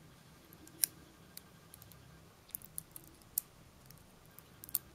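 Faint, scattered clicks of long fingernails tapping against one another as fingertips press the edges of nail foil down onto a nail, a few of them bunched together near the end.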